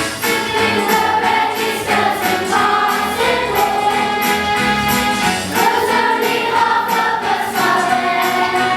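A group of voices singing a song in long held notes over instrumental backing, with a steady beat of light percussion.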